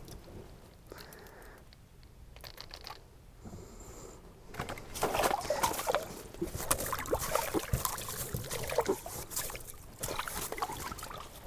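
Water sloshing and splashing in an ice-fishing hole as a hand reaches in and pulls a small lake trout up through it, starting about four and a half seconds in.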